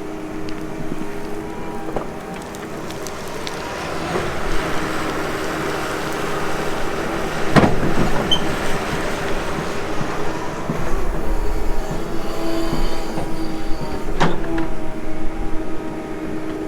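Excavator engine and hydraulics working under load while digging and casting compacted clay, with a steady whine. Two sharp clunks come about halfway through and again near the end.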